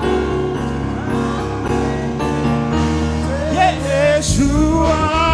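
Slow worship song: sustained instrumental chords, with a voice coming in to sing about three and a half seconds in.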